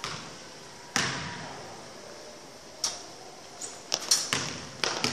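Basketball hitting a hardwood gym floor, with a loud, echoing bang about a second in and another shortly before the three-second mark. Near the end comes a run of quick, sharp taps and squeaks as play moves on.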